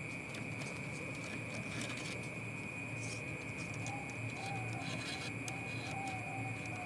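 Zebra dove (perkutut) cooing: a run of short, evenly spaced low notes, about three a second, starting about halfway through, over a steady high-pitched whine.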